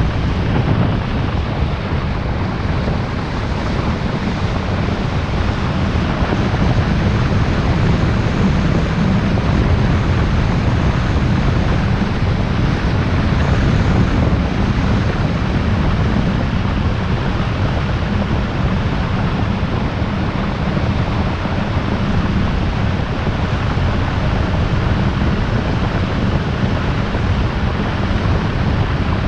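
Steady rush of wind and road noise from a moving car, with a heavy low rumble and no distinct engine note.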